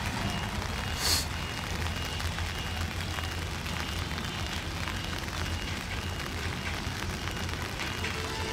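Steady rain hiss over a low, continuous diesel train rumble as the train pulls away, with a brief sharp hiss about a second in.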